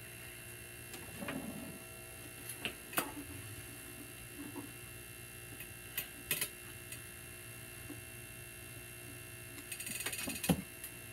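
Scattered light clicks and a brief scratchy rasp from handling an animatronic Santa figure's head and beard, over a steady electrical hum.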